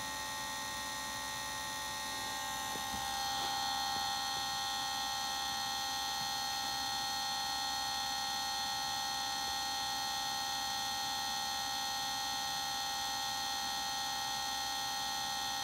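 Electronic throttle body actuator motor of a 1997 Mercedes-Benz SL600 humming steadily with the ignition on while it holds the throttle plate, its gear standing still; a many-toned electric whine that gets slightly louder about three seconds in.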